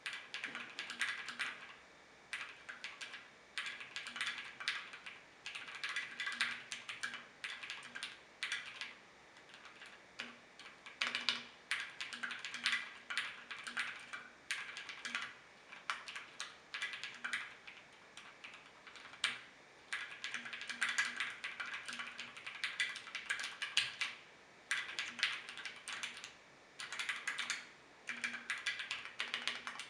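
Typing on a custom 60% mechanical keyboard with lubed Gateron Black Ink linear switches, a polycarbonate plate and a black aluminium case: rapid runs of keystroke clacks a few seconds long, broken by short pauses.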